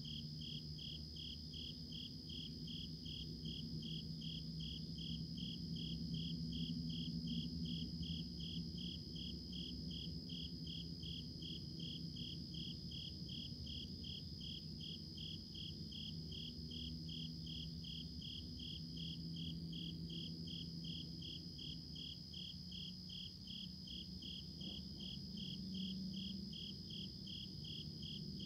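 Insects chirping, crickets by their sound: a high chirp repeating evenly about twice a second over a steady, higher continuous trill, with a low hum underneath.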